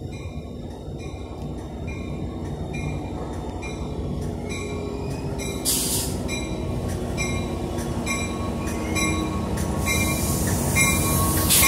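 TRE commuter train's diesel locomotive approaching and pulling into the platform, its engine rumble growing louder. A bell rings about twice a second, with two short bursts of hiss, one midway and one near the end.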